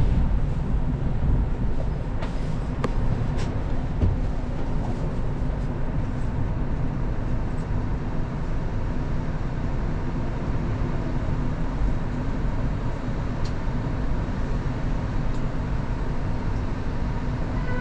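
Kanazawa Seaside Line rubber-tyred automated train running along its guideway: a steady low rumble of running noise, with a few sharp clicks about two to three seconds in.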